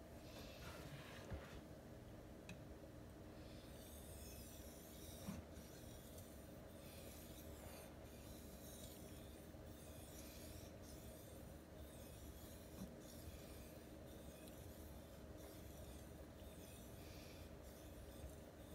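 ESEE 3MIL knife blade drawn across a wet Suehiro Debado whetstone while being polished: faint scraping strokes about once a second, steady from about four seconds in after a single stroke near the start.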